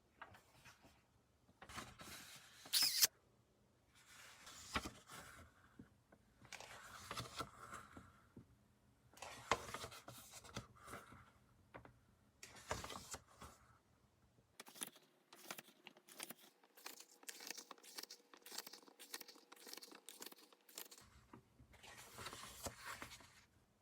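A new paper diary being handled close up: paper rustling and swishing in short strokes, with many small clicks and taps that come faster in the second half.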